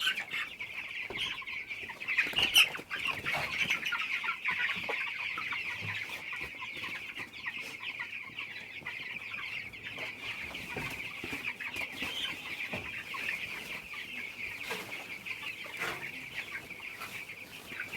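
A large flock of young broiler chicks peeping continuously in a dense, high-pitched chorus, with a few sharp clicks, the loudest about two and a half seconds in.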